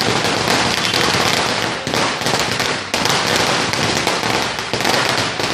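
Firecrackers going off in the street in a rapid, unbroken run of loud cracks and bangs.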